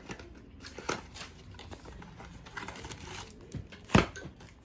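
Cardboard packaging being handled: the stiff black cardboard insert of a laptop box lifted and shifted, with soft rustles, scattered light knocks and one sharper knock near the end.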